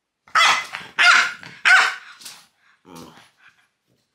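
French bulldog barking three times in quick succession, then a quieter, lower bark about three seconds in, agitated by a finger pointed at it.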